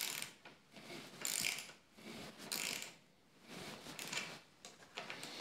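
Ratcheting ring spanner clicking in short runs, about once a second, as it is swung back and forth to turn a thread tap that is cutting a thread into a motorcycle handlebar end.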